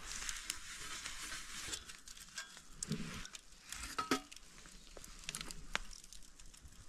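Faint sizzling hiss with scattered crackles and pops, from peanut oil baking onto a steel griddle over a fire as it is seasoned.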